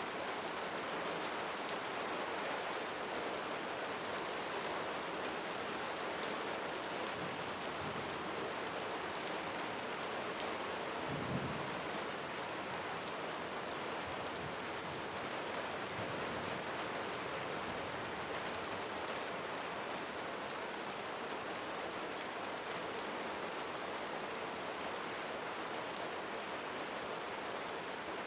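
Steady rain falling on leaves, with the patter of individual drops throughout. A brief low rumble comes about eleven seconds in.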